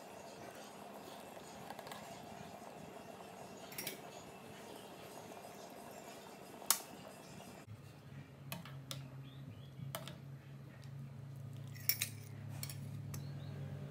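Metal ladle and spoon clinking now and then against a stainless-steel stew pot and a ceramic bowl while stew is ladled out. A faint steady noise underlies the first half, and a steady low hum takes over about eight seconds in.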